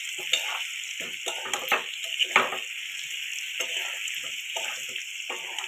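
Mango pickle sizzling in hot oil in a kadai, a steady hiss under irregular scraping strokes of a spoon or spatula stirring the mango pieces against the pan.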